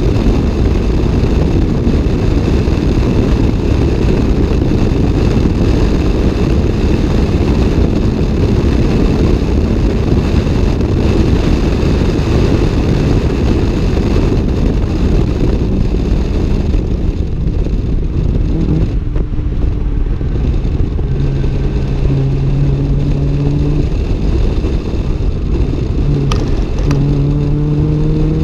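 Toyota AE86's 4A-GE twin-cam four-cylinder engine and 5Zigen exhaust, heard from inside the cabin on track. It runs hard at high revs for the first half. About two-thirds of the way in it eases off and the engine note comes through clearly, then rises in pitch again as it accelerates near the end.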